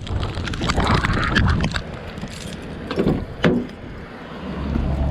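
Rain and wind noise, with a few short knocks of handling about three seconds in. A low rumble builds near the end.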